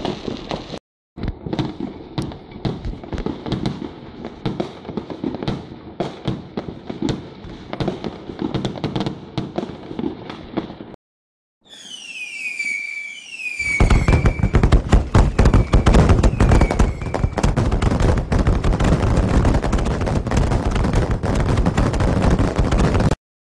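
Fireworks going off in a rapid, continuous barrage of pops and crackles. About eleven seconds in the sound cuts, and a louder track follows: a few falling whistles, then dense crackling that runs until it stops abruptly near the end.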